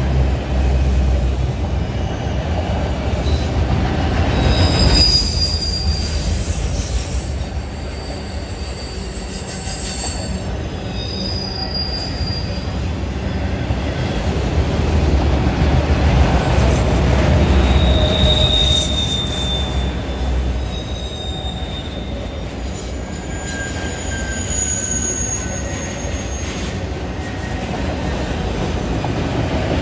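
Freight train of autorack cars rolling past: a steady rumble of wheels on rail that swells and fades, with brief high-pitched wheel squeals every few seconds.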